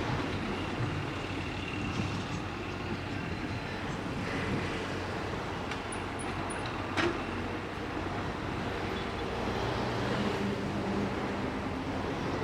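Diesel engine of a JCB 3DX backhoe loader running steadily, with a single short knock about seven seconds in.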